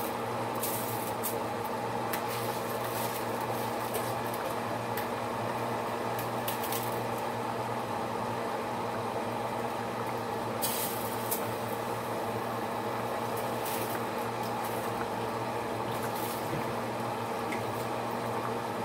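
Pot of tomato broth boiling steadily on the stove, with a steady hum underneath and scattered short hissing crackles, the loudest about ten and a half seconds in.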